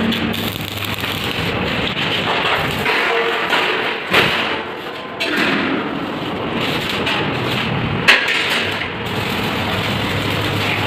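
Electric arc welding on galvanized steel door-frame sections: a steady, dense crackle from the welding arc. Two sharp knocks stand out, about four seconds in and about eight seconds in.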